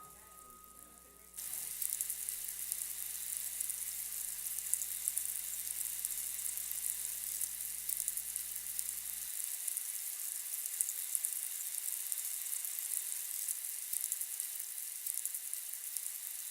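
Dermestid beetle colony crawling over and feeding on carcasses: a steady, dense fine crackling like sizzling, starting abruptly about a second and a half in.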